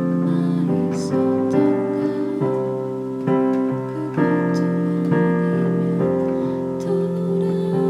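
Instrumental music: slow sustained chords, a new chord struck about every second.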